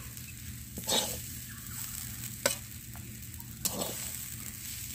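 A spatula scrapes and knocks against a frying pan three times as stir-fried amaranth greens are scooped out, over a steady sizzle of hot oil.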